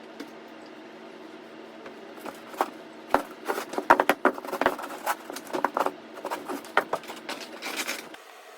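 Irregular clicks and knocks, like small objects being handled, over a steady mechanical hum that changes abruptly near the end.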